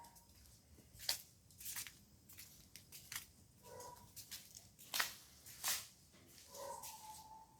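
About half a dozen sharp, irregular taps and knocks on the roof tiles, the loudest about five seconds in. Two short animal calls are heard, one about halfway and one near the end.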